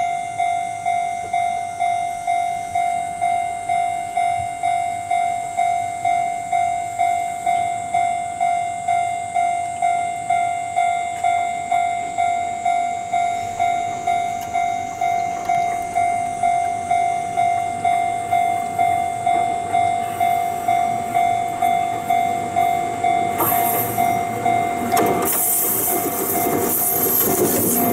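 Japanese level-crossing warning bell ringing steadily at about two strikes a second. Near the end an electric train's running noise rises as it reaches the crossing, and the bell stops.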